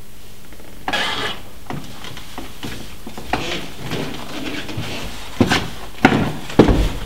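High-heeled shoes clicking on a wooden parquet floor, one sharp step about every half second, beginning about five seconds in. Before that, soft rustling and scuffing.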